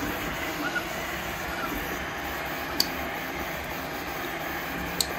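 Anycubic Kobra 2 Max 3D printer running a print: a steady hum of fans and stepper motors driving the print head, with short rising-and-falling motor tones in the first second or so. Two sharp clicks sound about three and five seconds in.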